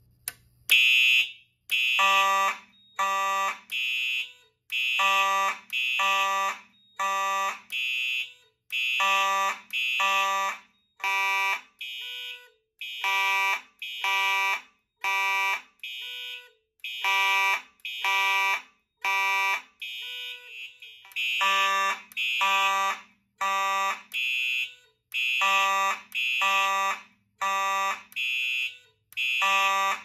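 Simplex fire alarm horns set off by a manual pull station, starting about a second in and sounding in repeating half-second blasts, roughly one a second. Two or more horns of different pitch overlap out of step.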